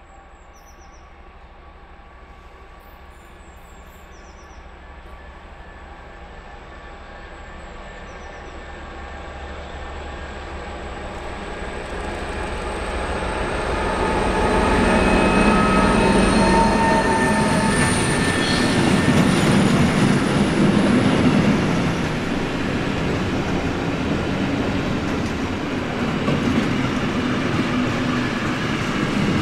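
Ludmilla diesel locomotive approaching and passing with a goods train of hopper wagons: its engine drone grows steadily louder, with a high whine over it, peaking about halfway through. The wagons then roll past with a steady rumble and wheel clatter.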